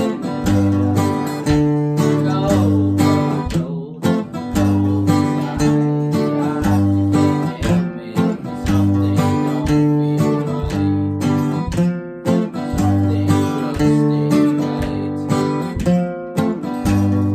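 Two acoustic guitars playing a song together, strummed chords in a steady, repeating pattern.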